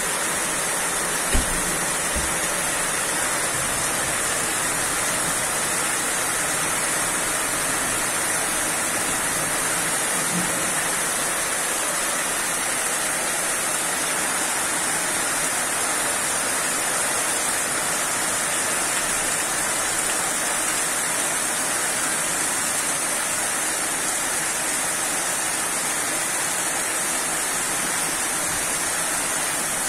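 Heavy rain pouring down steadily, an even hiss, with one sharp knock about a second in.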